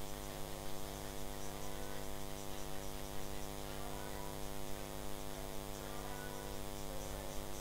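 Steady electrical mains hum with a buzzing stack of overtones, unchanging throughout.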